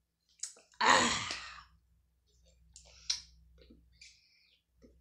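A woman's loud, breathy exhale about a second in, her reaction to a shot of straight vodka, followed by small mouth clicks and a short sip through a straw near the end.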